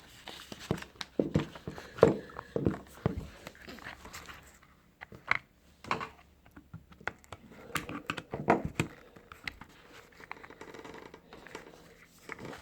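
Irregular clicks, knocks and rustling from hard plastic and metal seat belt parts being handled, loudest about two seconds in and again past the middle.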